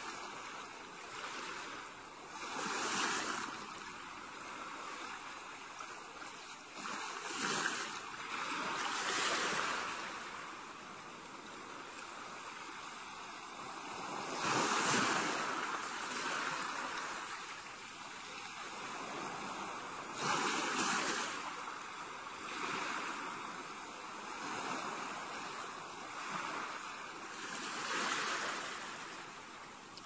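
Gentle ocean waves breaking and washing up a beach. Each wash swells and fades every few seconds over a steady hiss of surf.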